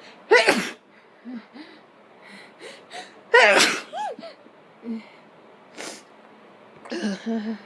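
A person sneezing, brought on by sniffing pepper: a sharp sneeze just after the start and a louder, longer one about three and a half seconds in, with short breathing sounds between and another vocal burst near the end.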